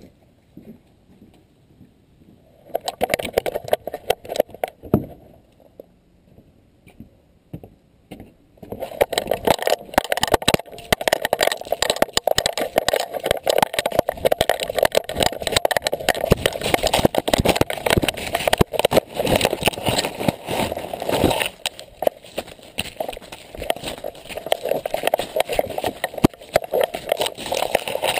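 Dense rustling and crunching of a dog running through dry leaves and brush, heard close up from a camera strapped to the dog, with constant knocking and jostling. A short burst comes about three seconds in, and the sound runs continuously from about nine seconds in.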